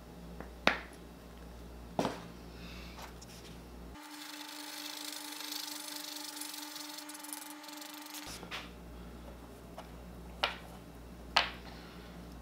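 Plastic epoxy bottles and a plastic mixing stick being handled on a workbench: sharp clicks about a second in, again at two seconds and twice near the end. In between there is a soft, steady hiss for a few seconds as the stick stirs two-part epoxy on the taped bench.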